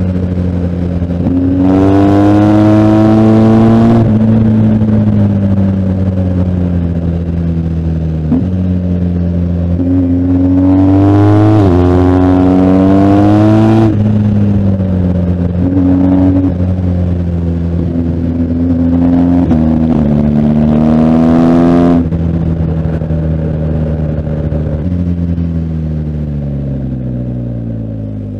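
BMW R1250GS Adventure's boxer-twin engine working hard: it accelerates in several runs with the pitch climbing, drops sharply at each gear change, then winds down with falling pitch over the last few seconds as the bike slows.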